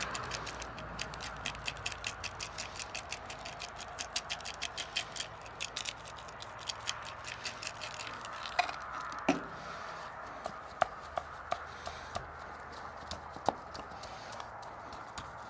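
Seasoning shaker being shaken over chicken drumsticks, rattling in quick regular strokes of about four a second for the first six seconds, then a few scattered sharper clicks and taps.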